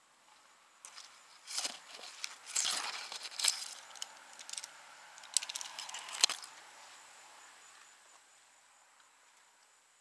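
Irregular rustling, scraping and crinkling as a climber moves through sweetgum limbs and foliage, brushing leaves and bark and handling the climbing rope. The rustles and scrapes bunch up between about one and six and a half seconds in, with a few sharp clicks, over a faint steady high-pitched drone.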